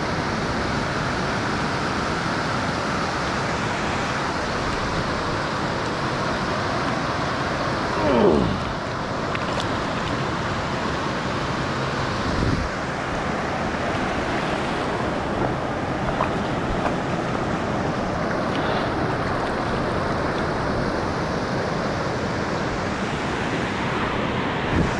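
Ocean surf washing in over a shallow sandy beach: a steady wash of noise, with a short falling whoosh about eight seconds in and a brief thump a few seconds later.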